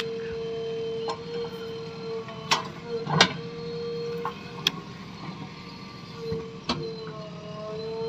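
JCB 3DX backhoe loader working its backhoe arm as it digs and swings a bucket of soil: the engine runs under a steady whine that drops out for a moment midway, and four sharp knocks come over the middle of the stretch.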